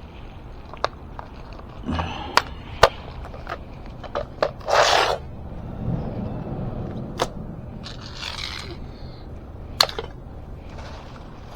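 Tools and parts being handled and set down: scattered sharp clicks and knocks, with a short scraping rustle about five seconds in and a fainter one a few seconds later.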